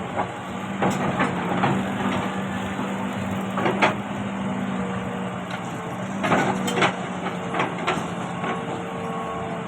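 Excavator's diesel engine running steadily, with a string of short knocks and clanks from the digging, the loudest about four seconds in and again around six to seven seconds.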